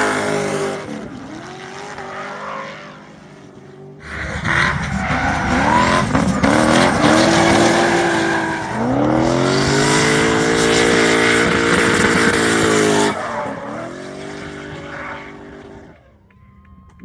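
BMW E36 with a turbocharged 4.4-litre M62B44 V8 drifting, the engine revving hard and rising and falling in pitch over the tyres squealing. It is loud at the start, drops away, comes back loud for a long pass of about nine seconds, then fades away near the end.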